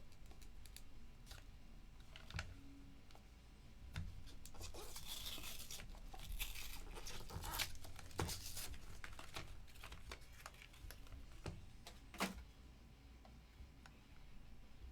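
Trading cards and their plastic packaging being handled: rustling and crinkling, busiest in the middle, with scattered sharp clicks.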